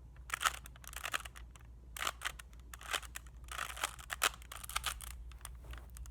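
Plastic Rubik's Cube layers being twisted by hand, a run of quick clicking and rattling turns in several short bursts.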